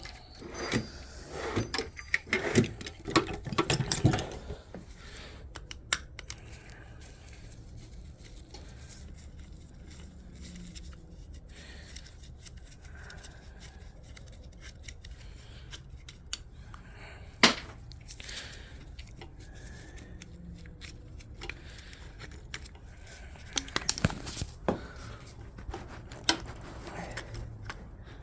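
Metal tools clicking and knocking against a seized distributor while it is worked loose and taken apart: a busy run of knocks at the start, a lone sharp knock past the middle, and another cluster near the end, over a low steady hum.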